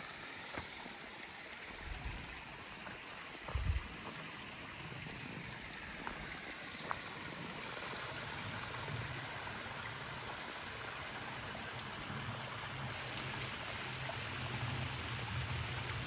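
A shallow mountain stream running over rocks, a steady rushing hiss, with a lower rush coming in about halfway and growing slightly louder toward the end. A couple of soft thumps in the first few seconds.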